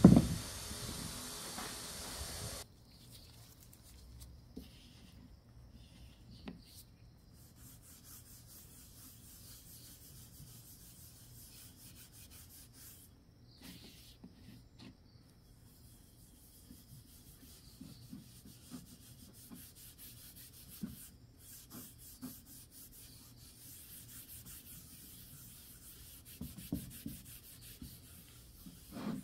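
A steady hiss that cuts off suddenly about two and a half seconds in, then faint, intermittent hand rubbing on a wooden surface.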